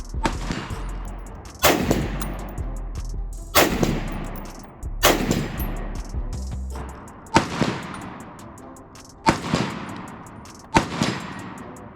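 Gunshots: about six single shots fired one at a time, roughly a second and a half to two seconds apart, each with a long echoing tail.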